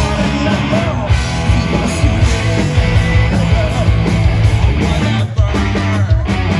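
Loud rock music with electric guitar and a driving beat, with a short break about five seconds in.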